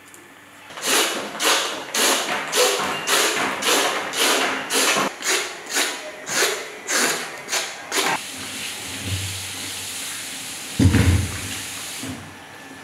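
Scraping strokes on a pumpkin's rind, about two a second, as the skin is scraped off. From about 8 s a kitchen tap runs into a steel sink as the pumpkin is rinsed, with a heavy thud about 11 s in.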